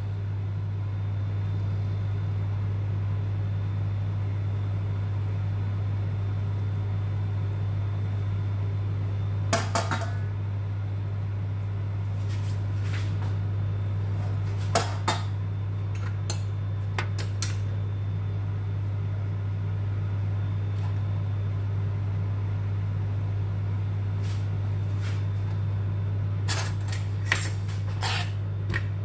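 Metal tongs and utensils clinking and scraping against a metal pan now and then, over a steady low hum.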